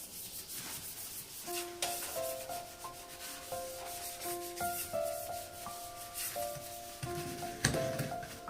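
Scraping and rubbing noise in short strokes, with a simple background melody of held notes coming in about a second and a half in, and a louder knock near the end.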